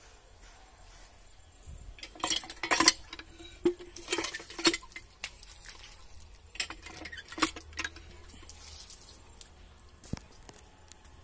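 Aluminium cooking pots clattering and knocking as they are handled and set down, in three bursts of strikes, about two, four and seven seconds in, some with a short metallic ring.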